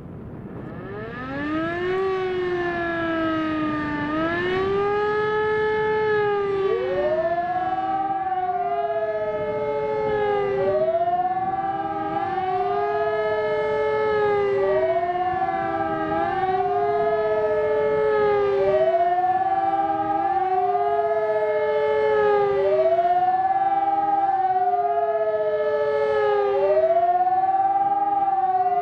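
Two civil-defence sirens, an ECN electronic siren and an E57 electromechanical siren, sounding the German 'Warnung' public-warning signal. They start up about a second in, then wail up and down in pitch about every four seconds, out of step with each other.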